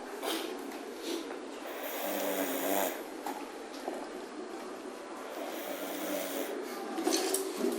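A sleeping person snoring, with a few drawn-out snores several seconds apart.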